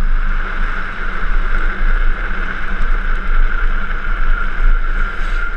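Drift trike rolling fast downhill on asphalt: a steady rush of wind buffeting the helmet camera over the hiss of the trike's wheels on the road.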